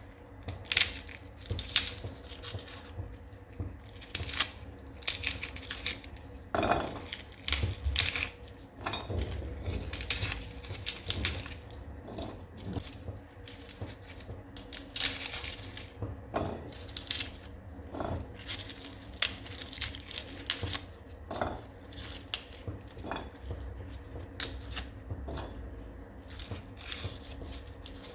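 Hand food preparation in a kitchen: a run of irregular clicks and knocks of utensils against dishes, with some tearing and crinkling.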